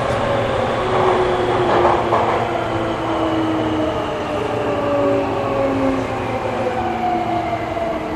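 Hankyu 8300 series electric train heard from inside the car, running through a subway tunnel: a steady rumble of wheels on rail under a motor whine whose pitch slowly falls as the train slows.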